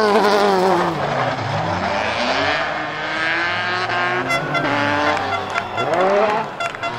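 Fiat 131 rally car's 2.0-litre Alfa Romeo D2 engine on individual throttle bodies revving hard as the car passes. The engine note falls off and climbs again twice as the driver lifts and gets back on the throttle.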